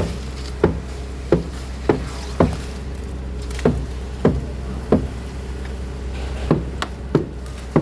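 Sharp knocks, about eleven at uneven intervals, over a steady engine hum.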